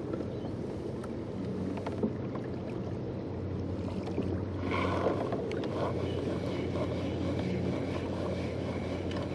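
Water washing against the hull of a pedal kayak under way, with wind on the microphone and a faint steady low hum. About five seconds in come a few clicks and rattles as a fishing rod and reel are picked up and handled.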